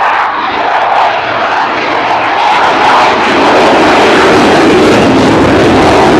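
Eurofighter Typhoon's twin EJ200 turbofan jet engines running loud in a low display pass. The jet noise grows louder and deeper about halfway through, then holds.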